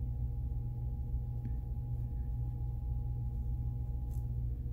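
Steady low background hum, with a faint steady whine over it that stops near the end, and a couple of faint ticks.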